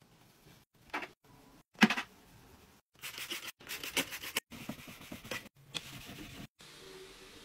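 A duster and a cloth rubbing and wiping over a white laminate cube shelf, in short bursts that stop abruptly, with one sharp knock just under two seconds in.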